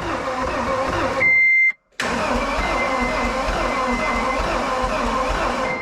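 John Deere 320D skid steer's diesel engine cranking on the starter without catching, with an irregular sound like it's missing on a cylinder: the owner takes it for low compression on one cylinder from a dropped valve. Cranking stops for a moment just under two seconds in, then starts again. A steady high beep sounds just before the stop.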